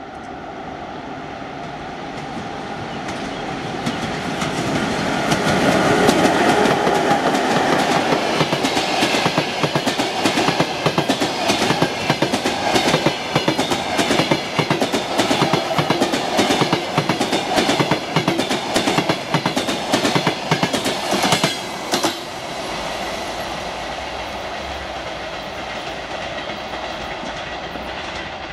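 A passenger train hauled by a ChS7 two-section DC electric locomotive passes. The rumble builds as it approaches, then the carriage wheels clatter in a fast clickety-clack over the rail joints for about fifteen seconds. The clatter stops at about 22 seconds, and a steadier rumble fades as the train goes away.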